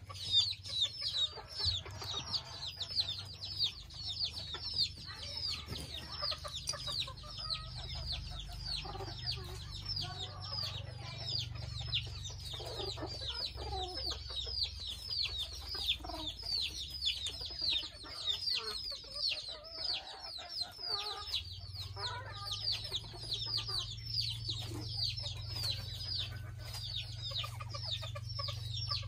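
Mini Thai bantam chickens clucking as they forage, with a steady run of high, falling chirps several times a second underneath.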